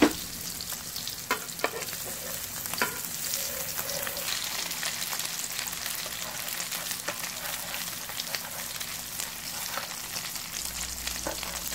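Egg, vegetable and glass-noodle patties frying in hot oil in a nonstick pan: a steady sizzling with fine crackles. A few sharp clicks stand out in the first three seconds.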